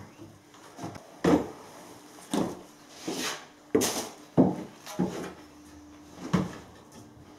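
Footsteps and shoe knocks on bare wooden floorboards and exposed joists: about seven irregular wooden thuds and clunks.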